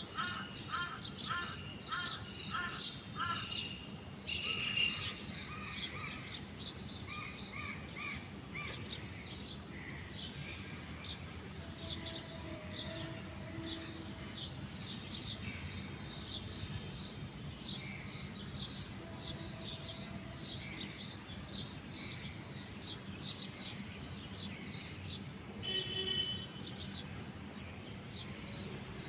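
Several birds chirping and singing, with quick high chirps repeated throughout and a run of short arched notes in the first few seconds, over a steady low background rumble.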